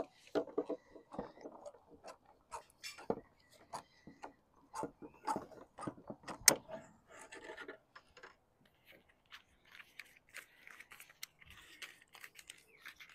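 Hand tools and a sheet of lead being handled on a work board: irregular clicks, taps and short scrapes, with one sharp tap about halfway through the loudest.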